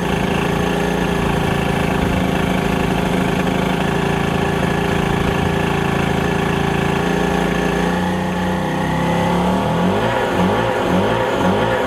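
Small two-stroke portable generator running steadily while powering a string of lit compact fluorescent lamps. About ten seconds in, electronic music with a regular beat comes in.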